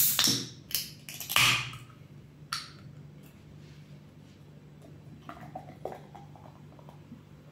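Aluminium soda can of Coca-Cola Zero being opened: sharp cracks and a hiss of escaping carbonation in the first couple of seconds. Then the cola is poured into a glass about five seconds in, a faint trickling pour.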